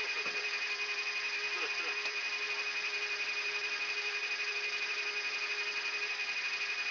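Cockpit voice recorder audio from a Yak-42D lining up on the runway: the steady whine and hum of the cockpit background, with a fast, even flutter and a faint word about two seconds in.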